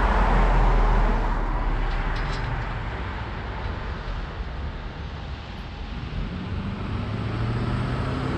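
Road traffic: a car passing close by, loudest about a second in and then fading away, with a lower engine hum building near the end.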